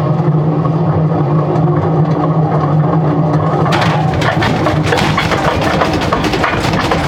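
AEG washing machine on spin: a steady motor-and-drum hum, then about four seconds in it breaks into rapid knocking and clattering as the machine jumps about.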